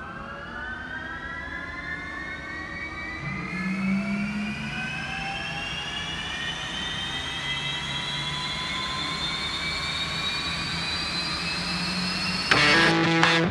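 Vericor TF50 marine gas turbine starting: a whine of several tones rising steadily in pitch as the power producer spools up toward idle, with a low hum joining a few seconds in. Guitar rock music cuts in near the end.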